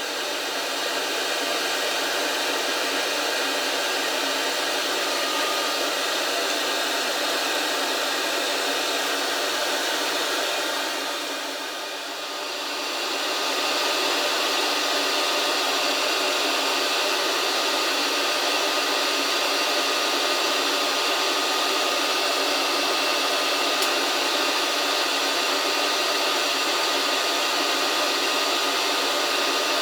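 Hot air rework station blowing steadily. It dips briefly about twelve seconds in, then runs on a little louder.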